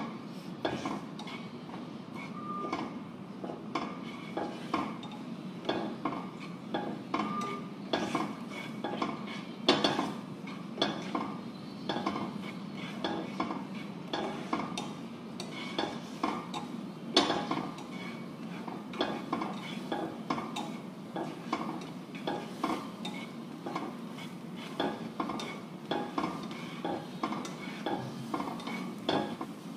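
Slotted spatula stirring chopped onion in a nonstick frying pan: repeated irregular scrapes and taps against the pan, roughly one or two a second.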